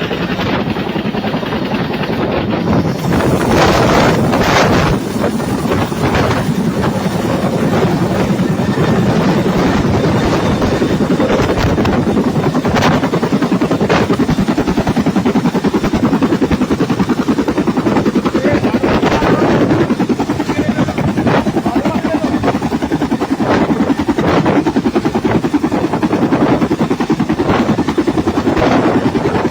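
Helicopter flying nearby: a loud, steady thudding rotor beat over the whine of the engine.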